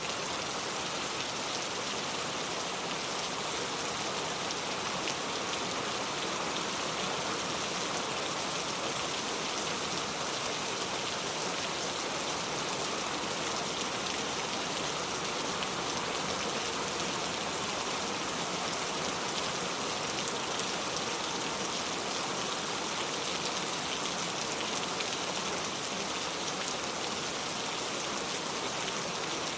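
Steady rain falling, an even hiss of many drops with no single sound standing out.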